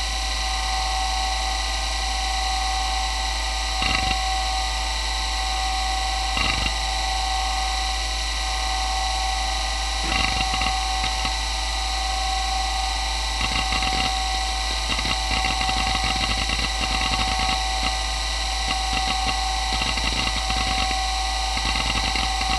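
Toshiba MK2024FC 86 MB 2.5-inch glass-platter hard drive spinning with a steady whine; the owner rates its bearings as not the best. Its heads seek with single clicks about four and six and a half seconds in. From about ten seconds on they break into rapid bursts of seek chatter as the drive reads Windows 95 at boot.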